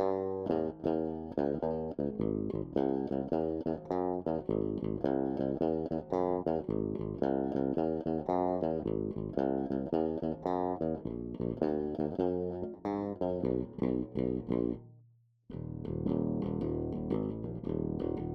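Warwick Vampyre SN-5 five-string electric bass played solo on its active MEC dual-J bridge pickup, with the bass and treble EQ turned all the way off, which drops the volume a lot. It plays a run of quick plucked notes, stops briefly about fifteen seconds in, then carries on.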